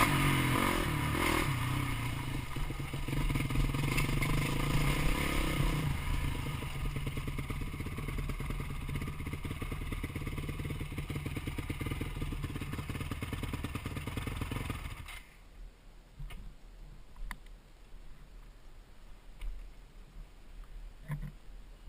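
Dirt bike engine running steadily, easing off about six seconds in. About fifteen seconds in it cuts off abruptly, leaving a much quieter stretch with a few faint clicks and knocks.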